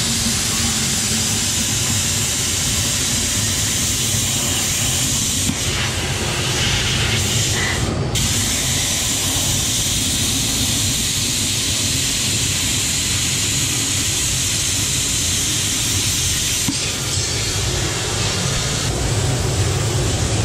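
Handheld plasma cutter hissing steadily as it cuts a round hole free-hand through steel plate, with a steady low hum underneath. The hiss breaks off briefly about eight seconds in.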